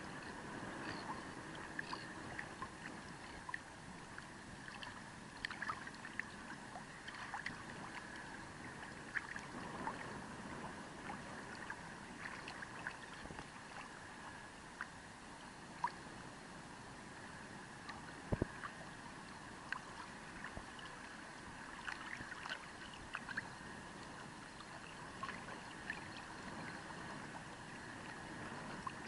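Shallow water lapping in small ripples right at the surface, with many scattered little plinks and trickles over a steady soft hiss.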